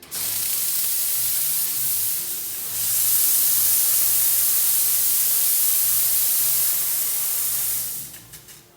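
Steam wand of a La Marzocco Linea 2EE espresso machine blowing steam: a loud steady hiss that starts suddenly, grows stronger about three seconds in and cuts off near the end.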